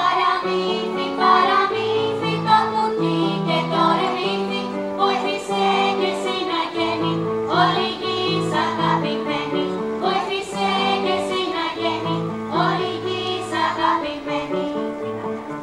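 Children's choir singing a song, accompanied by an electronic keyboard that holds steady bass and chord notes under the voices.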